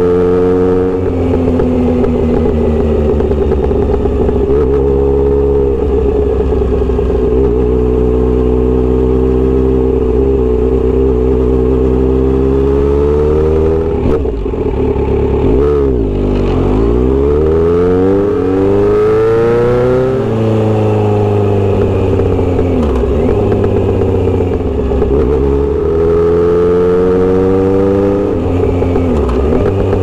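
Kawasaki Z900RS inline-four running through a Misty Kintaro short-pipe exhaust with L silencer, heard from the rider's seat while riding. It cruises steadily; about halfway the revs fall as the bike slows, then climb again in rising sweeps as it pulls away and settles back to cruising.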